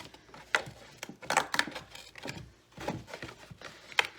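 Cardboard Happy Meal box being handled as a die-cut ear is pressed out: a string of sharp clicks and crackles, with a crisp snap just before the end.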